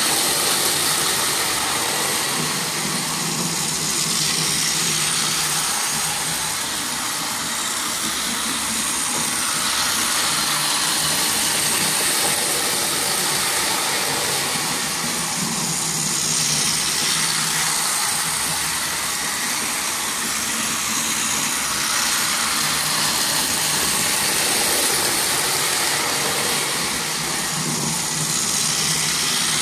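Several Power Trains battery-powered toy trains running on plastic track: a steady whirring of their small motors with the rattle of plastic wheels on the rails, rising and falling a little every few seconds.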